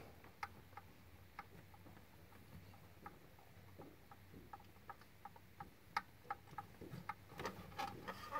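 Faint, light, irregular clicks, at times two or three a second, of hand work in the engine bay as the broken-loose cylinder head temperature sensor is worked free by hand.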